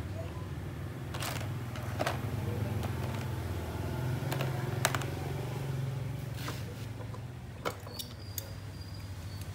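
A steady low engine drone in the background, with scattered sharp clicks and taps, several of them in the last couple of seconds as the small engine on the bench is handled.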